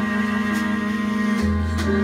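Live Brazilian jazz ensemble with cello, violins and piano playing an instrumental passage between vocal lines. A low note is held throughout, and a deeper bass note comes in about a second and a half in.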